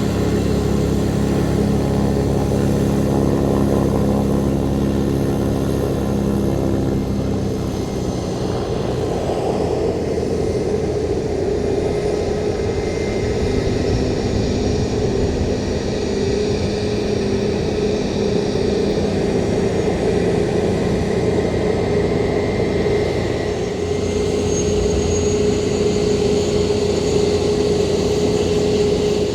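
Aircraft engine running steadily, with a constant tone; a lower layered hum fades out about seven seconds in.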